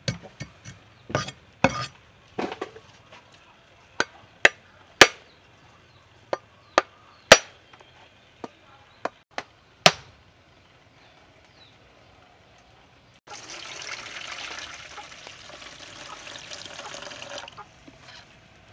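A cleaver striking a coconut over and over to crack it open, a dozen or so sharp uneven knocks. After a short pause, coconut water pours into a stainless steel bowl for about four seconds.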